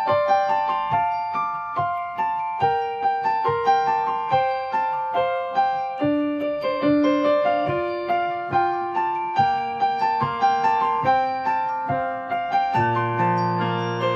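Piano playing a gentle melody over broken chords, each note struck and then fading. Low held bass notes come in near the end.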